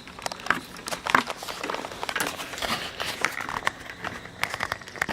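Handling noise of a lawn mower safety cable's snap-in fitting being worked loose: scattered clicks and scraping as the small locking wing on its side is pressed in and the fitting is pulled out of its hole.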